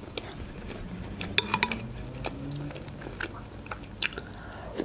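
Close-miked chewing of a puff-pastry bite, with scattered wet mouth clicks, and a metal spoon clinking in a ceramic bowl of borscht as a spoonful is scooped near the end.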